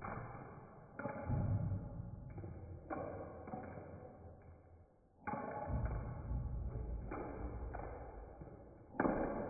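Hard white balls standing in for hail striking and bouncing on asphalt roof shingle samples, slowed down: a series of deep thuds about one to two seconds apart, each dying away slowly, the loudest near the end.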